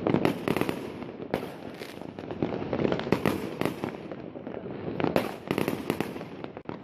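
Fireworks going off: a dense run of overlapping bangs and crackles, with louder clusters near the start, about three seconds in and about five seconds in.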